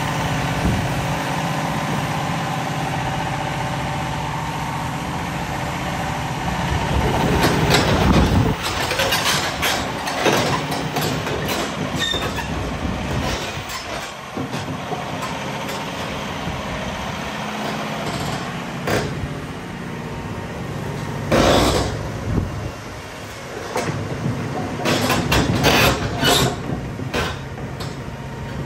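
Caterpillar hydraulic crawler excavator running its diesel engine while the boom and bucket work and the upper house slews round. There is a steady engine drone, with several loud, short metallic noises from the working machine, about a third of the way in, midway and near the end.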